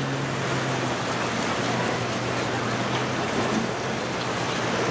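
Steady rushing of waves and churned water at an ocean inlet, with no clear engine note.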